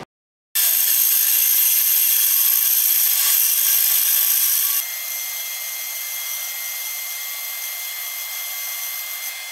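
A 12-inch band saw running and ripping a red oak board: a steady, high-pitched whine of the motor and blade as the wood is cut. It starts about half a second in and drops in level about five seconds in.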